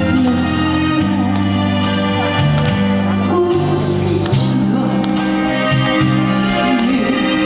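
Trot song performed live over a backing track: sustained chords over a bass line that moves from note to note, with a woman singing.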